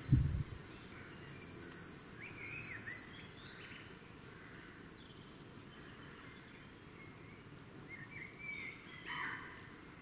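Wild songbirds singing: a loud, rapid trill that jumps between several pitches for the first three seconds, then softer scattered chirps, which pick up again near the end. A brief low flutter at the start as a bird takes off close to the microphone.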